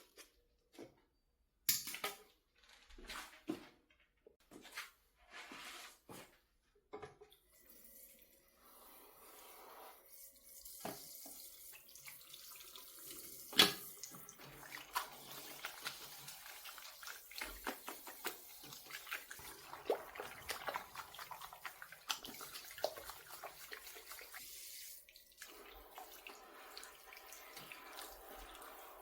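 Scattered knocks and handling sounds, then a tap running into a sink from about eight seconds in, with splashing while a wig is washed. A single sharp knock comes near the middle.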